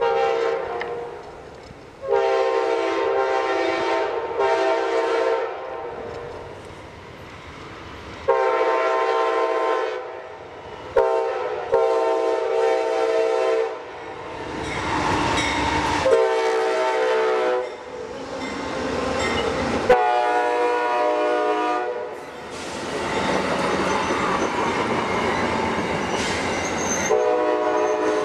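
Amtrak GE Genesis P42DC diesel locomotive blowing its chord air horn in a series of long and short blasts as it approaches, sounding for the grade crossings. For the last several seconds the locomotive and its stainless-steel passenger cars rush past with a steady rolling noise, the horn sounding once more over it near the end.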